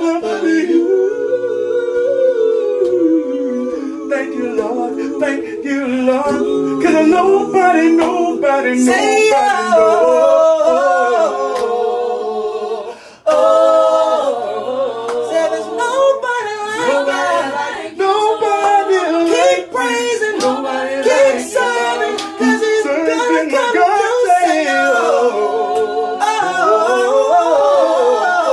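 A small group of men's and women's voices singing a gospel song a cappella in harmony, with a brief pause about halfway through.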